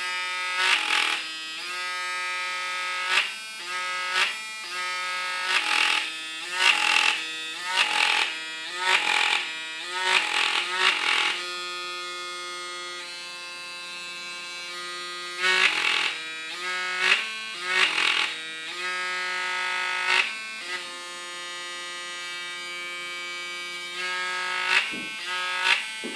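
Braun Series 7 Pulsonic electric shaver running at its highest intensity setting: a steady buzz whose pitch shifts up and down in steps, broken by short loud bursts of noise that come in clusters, several a second at times. These odd noises are the sign of a fault in the shaver.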